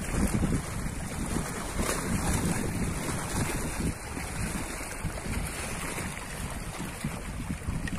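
Wind buffeting the microphone, a gusty low rumble, over small waves lapping against a stone embankment.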